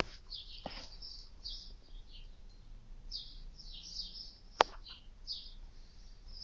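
Small birds chirping in short, repeated calls throughout. A sharp click about four and a half seconds in is the loudest moment, with fainter knocks near the start.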